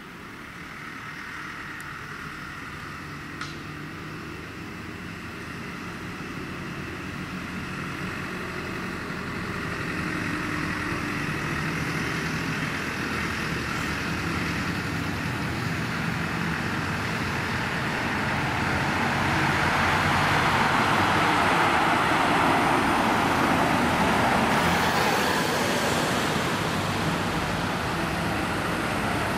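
Vehicle engines and tyre noise on the road, growing steadily louder to a peak about three quarters of the way through as the vehicles draw near, with a steady low engine hum underneath.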